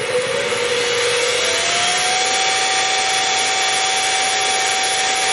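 Harbor Freight mini mill's spindle motor running, its whine rising in pitch over the first two seconds as it speeds up and then holding steady.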